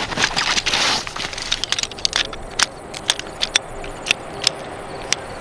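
Folding camp chairs being unfolded and set up: a burst of rustling, then a run of sharp clicks and knocks.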